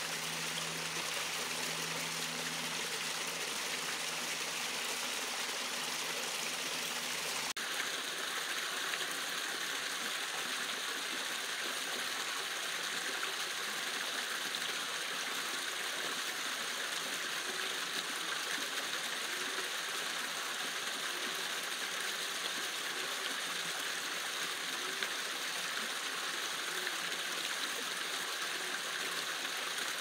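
Small creek waterfall: thin streams of water pouring over rocks and splashing steadily into a shallow pool. About seven seconds in the sound turns brighter and more splashy.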